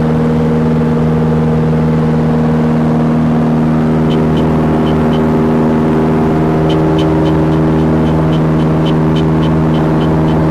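Steady drone of the OMF Symphony's 160-horsepower single engine and propeller, holding one pitch. From about four seconds in, a run of short high pips, a few per second, sounds over it.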